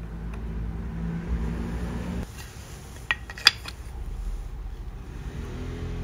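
Tools handled on a wooden workbench: two sharp knocks about half a second apart, over a low steady hum that stops a little over two seconds in.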